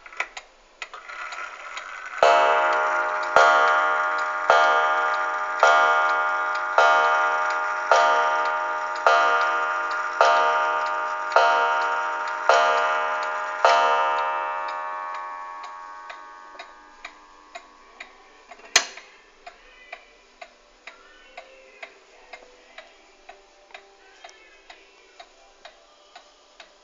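1906 Ansonia Aspen kitchen clock striking eleven on its gong, one strike about every second, each ringing on. The strike is set off by turning the minute hand to the hour, and the clock ticks steadily under it as the ringing fades. A single sharp knock comes about 19 seconds in.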